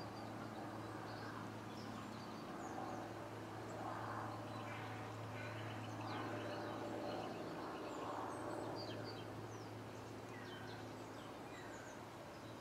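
Scattered short bird chirps and calls over a steady low hum and faint background noise.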